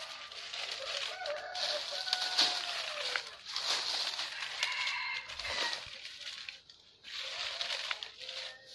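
Dry fallen leaves rustling and crunching as they are scooped up and crumpled by hand, with chickens clucking now and then.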